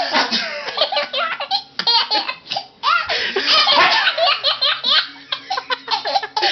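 Baby laughing hard in rapid, repeated bursts of belly laughs and giggles, with a brief pause about three seconds in.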